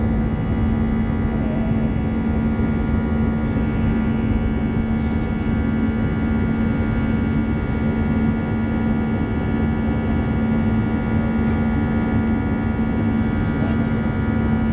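Airbus A320's CFM56 turbofan engines running at climb power after takeoff, heard from inside the cabin over the wing. A steady rush of engine and airflow noise carries a strong low hum and a stack of fainter steady tones above it.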